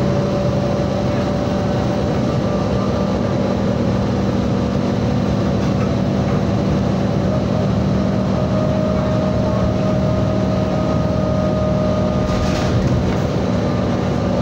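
City transit bus driving, heard from inside the passenger cabin: a steady engine and drivetrain hum with a faint whine over road noise. A brief burst of noise about twelve seconds in.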